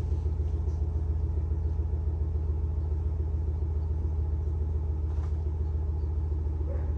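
Ram 1500 pickup's engine idling steadily, a low even rumble, while the reverse light is tested.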